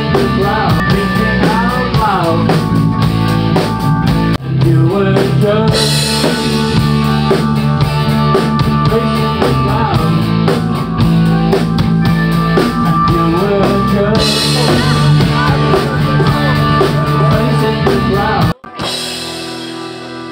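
Live rock band playing, with a drum kit, bass and guitars driving a steady beat. The music cuts off sharply near the end, leaving a much quieter background.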